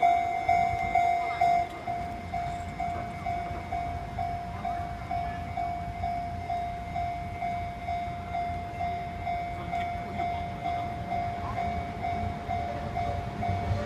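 Japanese railway level-crossing warning bell ringing at a little over two strikes a second, a single repeated tone, louder for about the first two seconds and then softer. A train's low rumble runs underneath.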